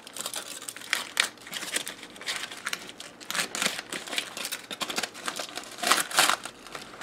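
Aluminium foil crinkling and rustling in irregular crackles as a foil packet of oven-roasted beets is pulled open with metal tongs and fingers.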